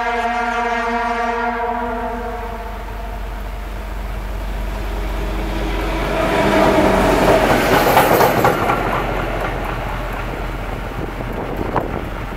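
ST44 (Soviet-built M62) diesel locomotive, with its 14D40 two-stroke V12 engine, passing at speed with an SM42 locomotive behind it. Its horn sounds and stops about two seconds in. Then the engine and the wheels on the rails swell to a loud peak as the locomotives go by, about six to nine seconds in, and fade away.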